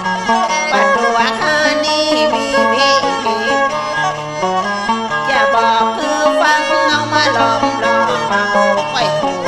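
Northern Thai Nan-style so folk music: a bowed fiddle and a plucked lute play a wavering, ornamented melody over a steady low drone.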